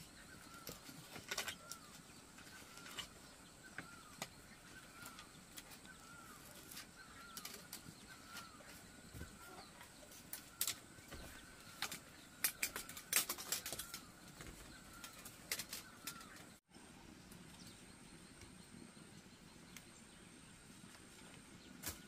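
Scattered light clicks and knocks of bamboo poles and strips being handled and fitted, busiest about halfway through. Behind them a short high call repeats steadily, about every two-thirds of a second, and stops near the end.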